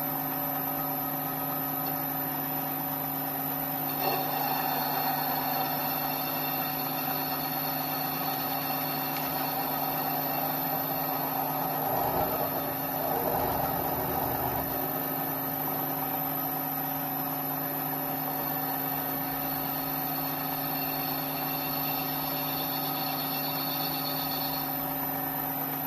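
Mini lathe running under a heavy cut on a 20 mm steel bar: a steady motor and gear whine with a rougher, louder cutting noise from about four seconds in, strongest around twelve to fourteen seconds, as the cutter peels off a long curled chip.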